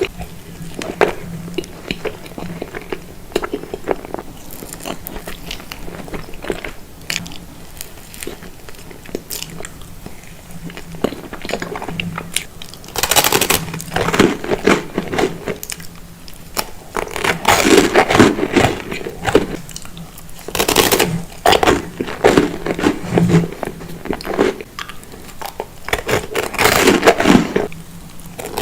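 A person eating profiteroles: bites and chewing of the choux pastry and cream, in irregular bursts that come thicker and louder in the second half.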